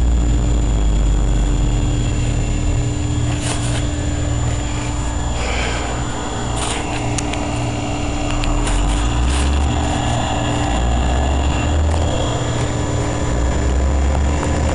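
Wind buffeting the phone's microphone, a low rumble that swells and eases, with a few handling clicks and bumps.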